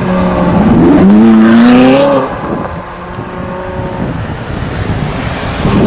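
BMW M6's V10 with a Valvetronic exhaust accelerating hard away, the revs climbing in a gear about a second in. The engine then fades quickly as the car pulls off into the distance.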